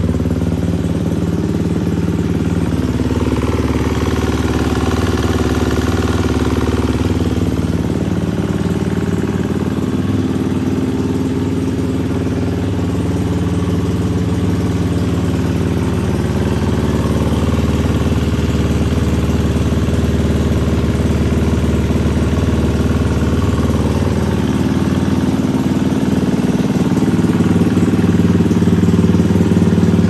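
KTM 350 four-stroke single-cylinder dirt bike engine, bored out to 365 cc with a big-bore kit and stage-one Hot Cams, idling steadily on a Vortex aftermarket ECU. It grows a little louder near the end.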